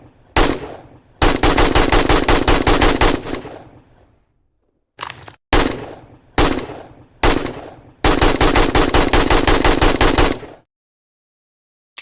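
AK-47 rifle firing, loud. A single shot comes first, then a burst of automatic fire of about two seconds. After a pause come three single shots about a second apart, then another automatic burst of about two and a half seconds. Each shot or burst leaves a fading echo tail.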